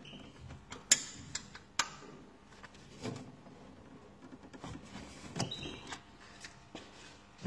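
Light metallic clicks and taps of screwdrivers working against a timing-belt tensioner as it is set to a light tension: a handful of sharp clicks, spaced roughly a second or more apart.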